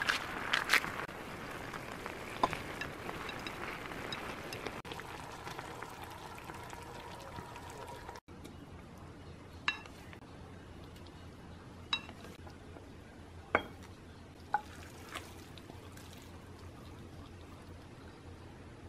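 Pasta and cabbage simmering in a frying pan, a steady bubbling sizzle for about the first eight seconds. After an abrupt cut it is quieter, with a few sharp clinks on a ceramic plate as the food is served out of the pan.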